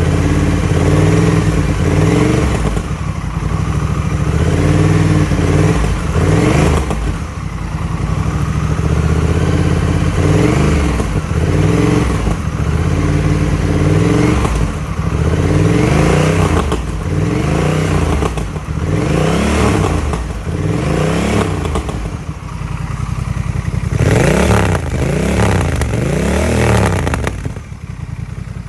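Honda Rebel 1100's parallel-twin engine, breathing through a cheap Chinese aftermarket muffler fitted with an inner silencer baffle. It idles steadily for the first several seconds, then is revved in a long run of short throttle blips that each rise and fall in pitch. The strongest blips come near the end before it settles back to idle.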